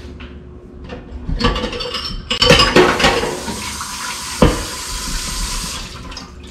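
Dishes clattering in a stainless-steel kitchen sink as a bowl and a pot are handled and rinsed, with the tap running from about two and a half seconds in until shortly before the end. A single sharp knock of crockery comes a little past four seconds.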